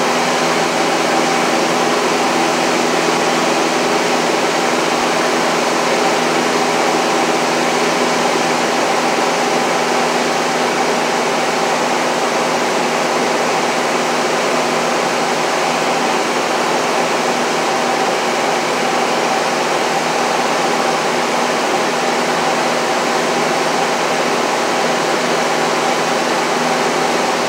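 Steady drone of a light airplane's piston engine and propeller heard inside the cockpit in flight: a constant hum of several even tones over a wide rush of air noise.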